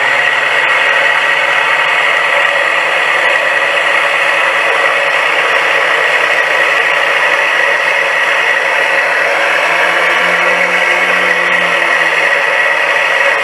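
Two electronic engine-sound units playing V12 Rolls-Royce Merlin engine sounds together through transducers stuck to a model boat's hull, running steadily. Out of the water it sounds tinny.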